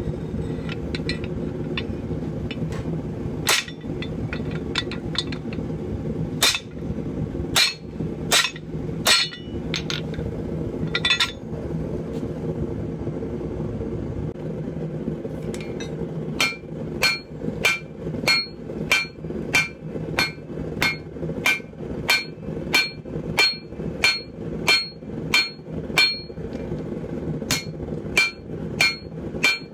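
Hand hammer striking hot steel while forging a pipe tomahawk head: first irregular blows on a guillotine tool over the anvil, then, after a short pause about halfway, steady hammering on the anvil face at about two blows a second, each blow with a clear anvil ring. A steady low hum runs underneath.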